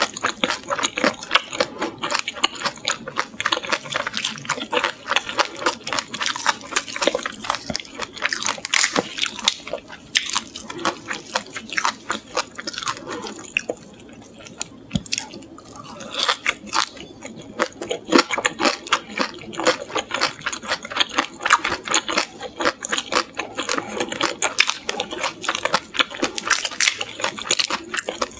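Close-up chewing of salt-grilled shrimp: dense crunching and wet, squishy mouth sounds, with a short lull about halfway.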